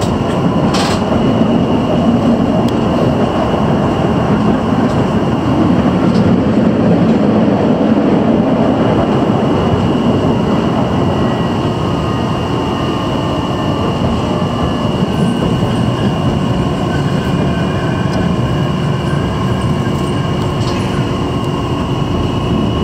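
Kumamoto city tram running along street track, heard from inside the car: a steady rumble of wheels and running gear with a constant high-pitched tone over it, and one sharp click about a second in.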